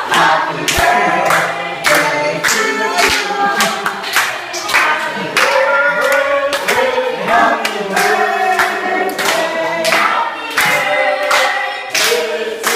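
A group of people singing together and clapping along to a steady beat, about two claps a second.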